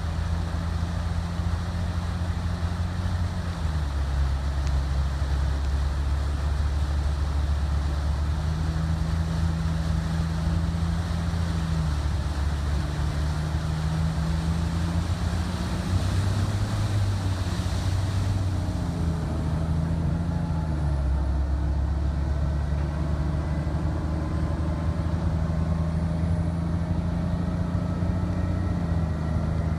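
Military truck engine running under load, a steady low drone that steps up and down in pitch several times, over the hiss of tyres ploughing through floodwater. The water hiss thins out about two-thirds of the way through as the road comes clear.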